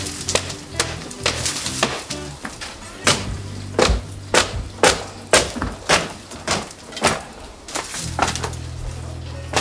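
Background music with a low bass line, over a run of sharp cracks and knocks: wooden lath and clay from a traditional earthen wall being pulled and broken away by hand.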